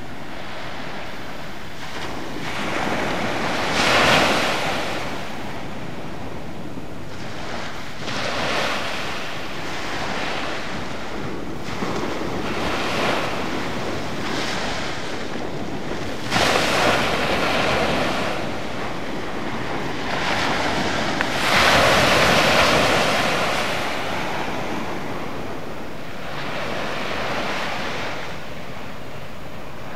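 Small sea waves breaking and washing up a sandy beach, surging every four to five seconds and fading between. The loudest surges come about four seconds in and again a little past twenty seconds.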